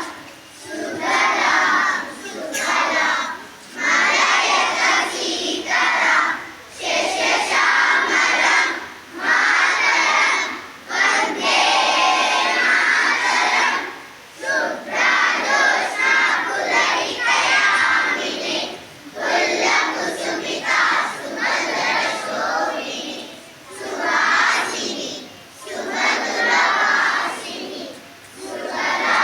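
A large group of children's voices chanting together in unison, in phrases of one to three seconds with short breaks between them.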